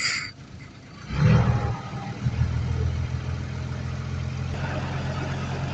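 Heavy diesel earthmoving machine engine: about a second in it comes up loud and then runs steadily with a deep, even note. There is a brief sharp noise at the very start.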